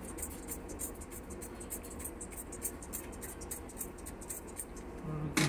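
Rapid, irregular rubbing strokes of a kitchen surface being wiped or scrubbed clean, several strokes a second. Near the end comes a short low hum, then a single sharp knock.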